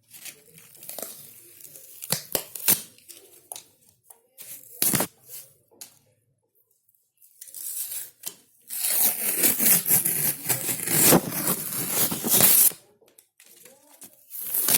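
Old wallpaper being pulled and torn off a wall: scattered crackles and small rips, then a long loud tearing run of about four seconds in the second half.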